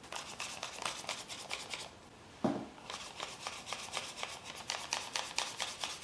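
Folded paper of an origami flapping bird rustling and clicking as its wings are flapped, a rapid run of light paper clicks. The clicks pause briefly about two seconds in, and there is a soft thump about halfway.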